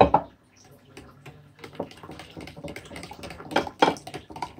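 A utensil beating a thick mayonnaise-and-yogurt sauce in a bowl: a knock at the start, then from about two seconds in, quick irregular clicks of the utensil against the bowl.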